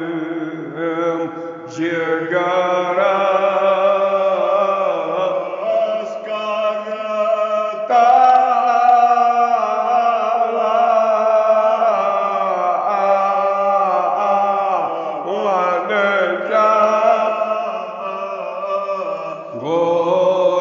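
An elderly man chanting a Kashmiri marsiya, a mourning elegy, in a long-drawn melodic recitation of held, gliding notes with short breaks between phrases.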